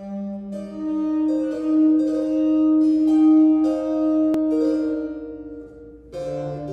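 Oboe, harpsichord and cello playing a Baroque oboe sonata: the oboe holds a long note over plucked harpsichord chords and a bowed cello bass, easing off briefly near the end before the next phrase.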